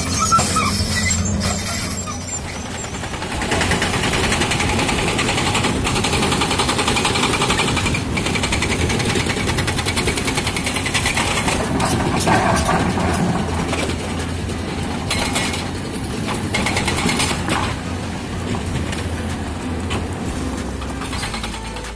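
Diesel engines of heavy road-construction machinery running steadily, with a few short knocks.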